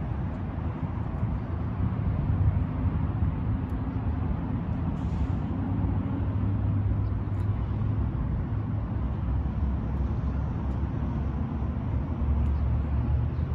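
McLaren supercar's twin-turbo V8 idling steadily, a low even hum.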